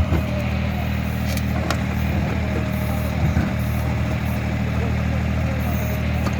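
Tractor engine running steadily at a constant speed, with a brief knock about three seconds in.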